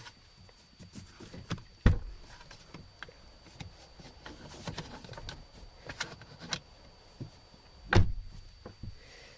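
Plastic interior car-door trim panel being handled and fitted against the door: scattered light clicks and rattles, with two sharp knocks, one about two seconds in and one near the end.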